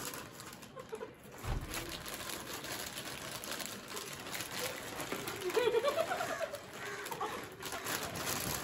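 Foil chip packets crinkling and being torn open while potato chips are crunched, with a brief run of low wavering notes a little past halfway.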